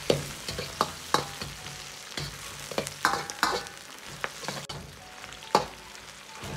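Pork belly slices with scallion, ginger and garlic sizzling in hot oil in a wok while a steel ladle stir-fries them, the aromatics being fried until fragrant. Sharp clacks and scrapes of the ladle on the wok come at irregular intervals over the steady sizzle, the loudest about five and a half seconds in.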